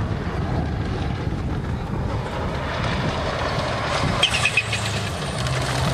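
Subaru Impreza rally car approaching on a gravel stage: its engine is a distant rumble at first, then grows louder, with a clear engine note near the end. A few short high chirps sound about four seconds in.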